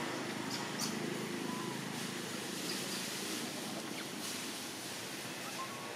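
Steady outdoor background hiss, with a few faint clicks and two brief faint high tones.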